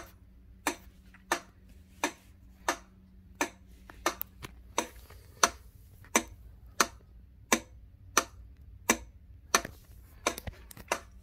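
1943 Union Switch & Signal NF-style flasher relay clicking steadily, about one click every 0.7 seconds, as its contacts switch the two red crossing lamps on and off in alternation.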